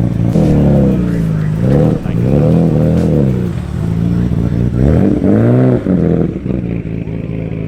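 A car engine idling, revved three times, its pitch rising and falling with each rev, then settling back to a steady idle near the end.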